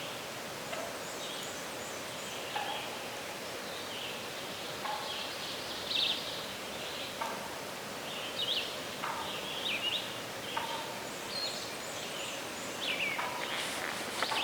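Woodland birdsong: several birds giving short chirps and whistles over a steady outdoor background hiss, with some rustling near the end.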